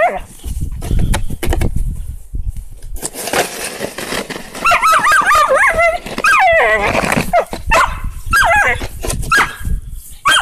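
Rough collie barking, yipping and whining in play, in quick runs of high, wavering calls. It is quieter in the first three seconds.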